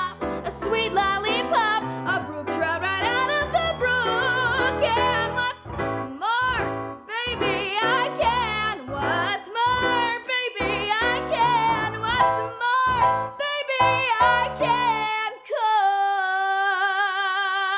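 A woman sings a musical-theatre show tune in a bright, belting style over instrumental accompaniment. Near the end the accompaniment drops away and she holds one long note.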